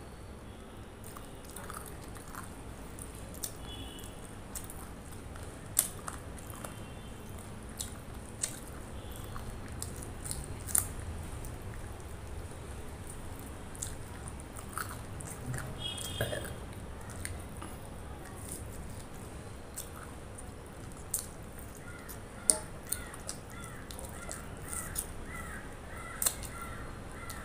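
Close-up eating sounds: chewing, sharp wet lip smacks and clicks as meat is gnawed off a chicken leg bone and curry-coated fingers are licked. A bird calls repeatedly in the background near the end.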